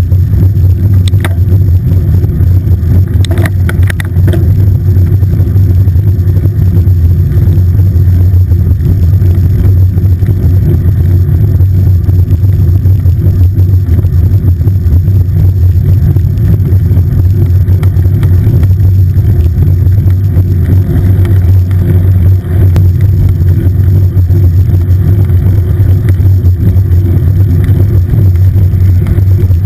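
Steady loud low rumble of wind and road vibration on a handlebar-mounted camera on a moving road bike, with a few light clicks in the first few seconds.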